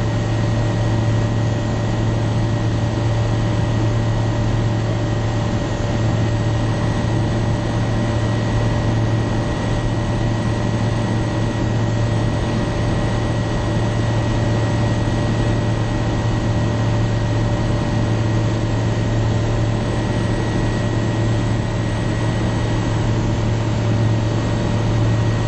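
Aeroprakt A-22LS Foxbat light aircraft's piston engine and propeller heard from inside the cabin in steady flight: a constant, even drone with a strong low hum and no change in power.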